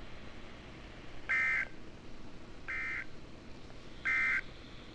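NOAA Weather Radio's SAME digital end-of-message signal: three short, identical burst of warbling two-tone data about 1.4 s apart. It marks the end of the Emergency Alert System warning.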